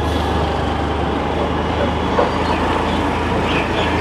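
Steady low rumble of vehicle engines and traffic, with a single faint click about two seconds in.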